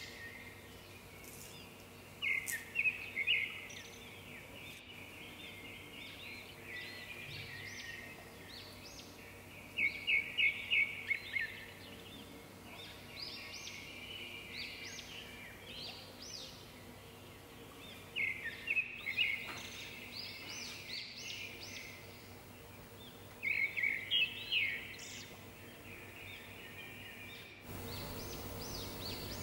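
A small songbird singing: bursts of rapid, high chirps repeated every several seconds, over a faint steady background hum.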